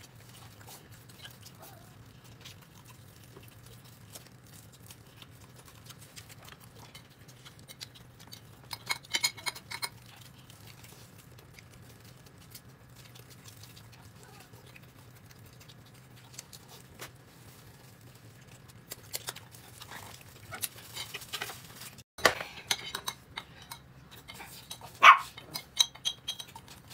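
Short clicks and clinks of utensils and dishes during a meal, in a cluster about a third of the way in and again more densely through the last third, over a steady low hum.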